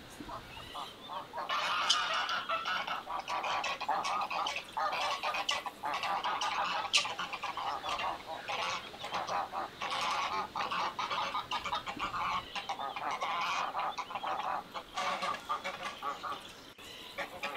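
Farmyard geese honking: a flock calling over and over in quick succession, starting about a second and a half in and dying away near the end.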